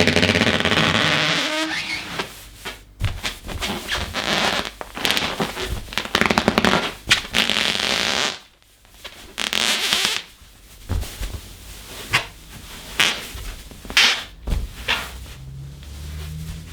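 Inflated latex balloon being rubbed and squeezed by hand: a high pitched rubbery squeal at the start, then a run of irregular short squeaks and scratchy rubbing sounds.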